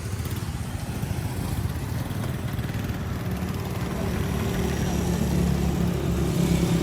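Honda CD70's small single-cylinder four-stroke engine running with a fast low putter, growing gradually louder, with a steadier pitch settling in about halfway through.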